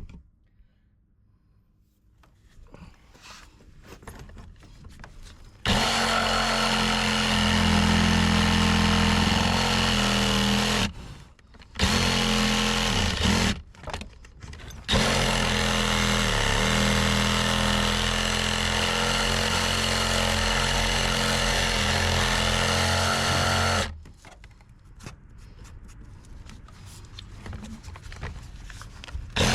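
Corded reciprocating saw (SawZall) cutting through deck wood, running in several runs: a few seconds, two short bursts, then about nine seconds without a break, each stopping abruptly. It runs after a quiet start and ends a few seconds before the end.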